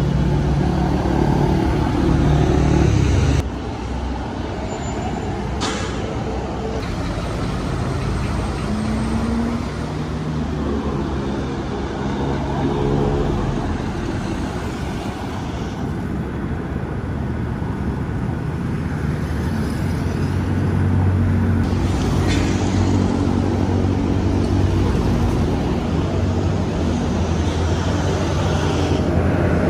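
Road traffic with car engines running and passing, a deep engine note with steady low tones loudest at the start and again in the last several seconds. The sound changes abruptly a few times, as between separate street clips.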